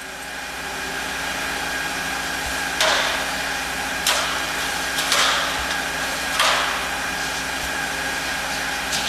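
Footsteps on an aluminium stepladder's rungs: five sharp clanks about a second apart as it is climbed, over a steady hum.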